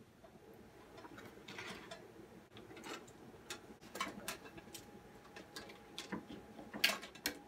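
Faint, irregular clicks and rustles of a sauna heater component and its cables being handled and turned over, with a couple of sharper clicks near the end.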